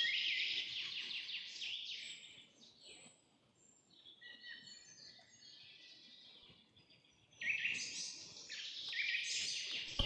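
Small birds chirping and twittering in quick, overlapping calls. The calls are busy for the first two and a half seconds, drop to a few faint chirps, then pick up again from about seven and a half seconds.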